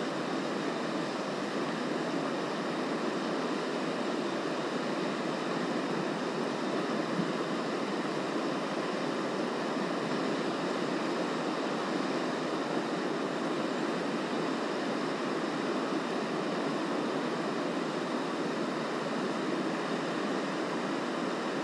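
Fast-flowing river water rushing steadily, an even hiss with no single splashes standing out.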